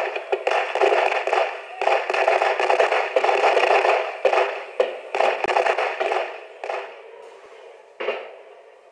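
Crackling noise recording, like fireworks, played loudly through the small speaker of an Akai portable CD/radio player. It thins out and dies down over the last few seconds.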